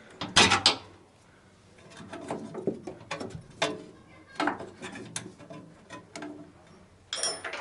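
Hand tools working on the stabilizer bar bushing bracket bolts under a Lada Vesta: a cluster of sharp metallic clicks about half a second in, then scattered single clicks and knocks, and a brief high-pitched metallic ring near the end.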